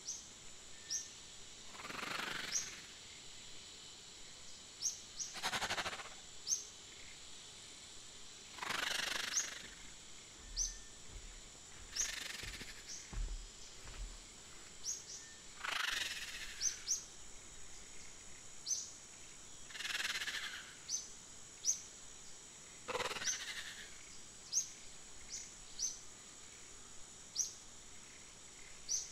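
Nature-ambience soundtrack: short, high, rising bird-like chirps every second or so over a steady high whine, with a swishing rustle about every three to four seconds.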